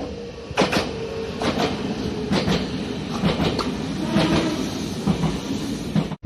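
Nagano Electric Railway express train running, its wheels clicking over rail joints in pairs about once a second over a steady rumble and a faint hum.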